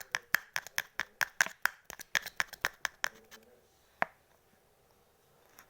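Rapid sharp clicking, about five clicks a second, from a small plastic colour bottle being worked by hand to get the paint out; it stops about three seconds in, with one more click about a second later.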